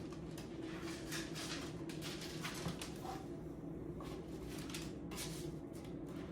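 Irregular rustling and light clicks from a mini springform pan and its parchment paper liners being handled, over a steady low hum.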